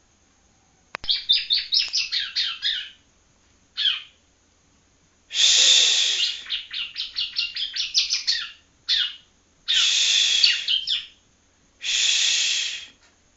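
Juvenile yellow-bellied prinia (ciblek kuning) practising its song: quick trills of sharp high notes, about eight a second, broken by three harsh rasping buzzes.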